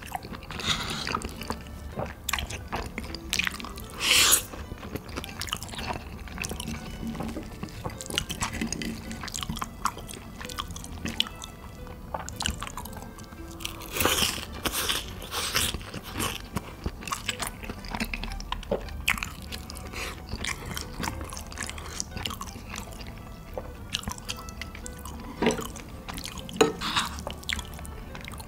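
Close-miked eating sounds: a person chewing and crunching food in a string of short, sharp bites, louder about four seconds and about fourteen seconds in, over background music.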